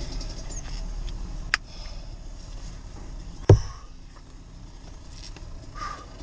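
Two knocks against a parked car, about two seconds apart: a short, sharp one, then a louder, deeper thump, the loudest sound here.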